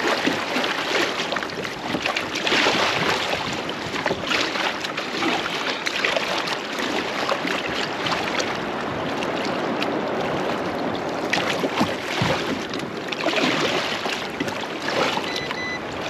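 Steady rushing noise of wind and water aboard a fishing boat, swelling and easing every few seconds.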